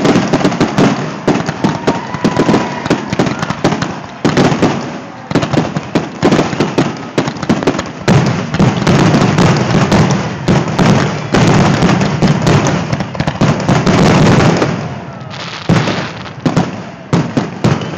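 Aerial fireworks shells bursting in a dense barrage, many sharp bangs in quick, overlapping succession, thinning to scattered bangs over the last few seconds.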